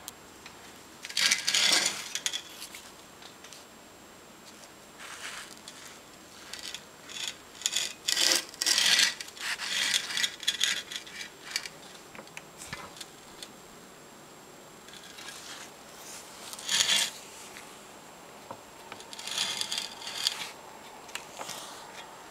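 Irregular bursts of scraping and rasping on metal, a tool working the seized studs of a catalytic converter, each burst lasting up to about two seconds with short pauses between.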